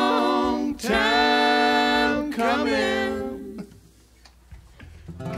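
Close vocal harmony from several voices singing the song's closing phrases as held chords with short slides between notes; the last chord dies away about three and a half seconds in, leaving a quiet room.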